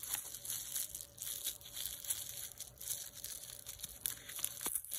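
Plastic wrapping crinkling and rustling in the hands as a small cosmetic item is unwrapped, in irregular crackles.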